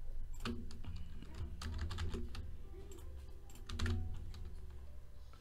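Typing on a computer keyboard: a run of irregular key clicks over a low steady hum.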